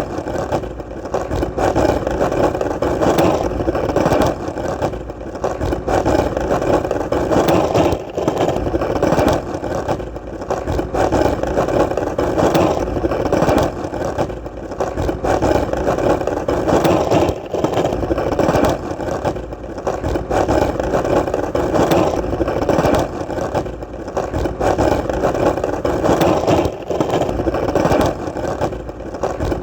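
Skateboard wheels rolling continuously over hard ground: a steady rumble with many small clicks and rattles from the surface, swelling and easing every few seconds.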